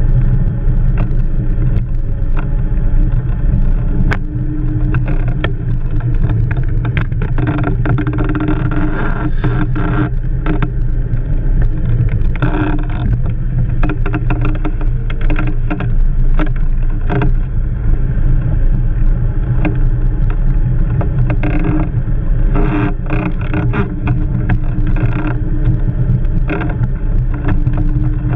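Blokart land yacht running fast over beach sand: a steady rumble of wind and rolling wheels, with frequent short knocks and rattles from the kart and the camera's pole mount.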